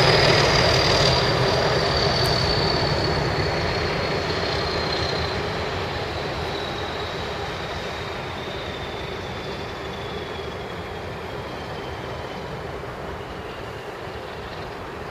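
Class 31 diesel locomotives working a train away under power, their engine noise fading steadily as they recede. A high whine slowly falls in pitch.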